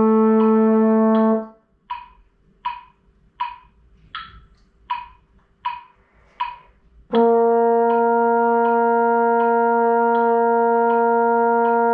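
Trombone holding a long, steady note that stops about a second and a half in, then a metronome ticking about every three-quarters of a second (80 beats per minute) through an eight-beat rest, then the next long note of the B-flat scale starting about seven seconds in and held steady. This is a long-tone scale exercise, eight beats per note, for building up the embouchure.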